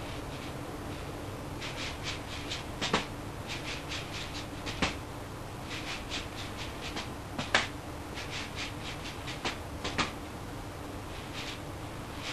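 Juggling balls landing in the hands, quick pats at about five a second in runs of a second or two, with a few louder single slaps between runs.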